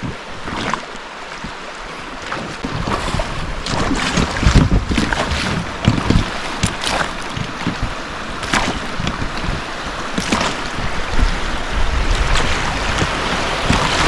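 River water and wind buffeting the microphone aboard a boat floating down a river, with a low rumble and short sharp sounds every couple of seconds.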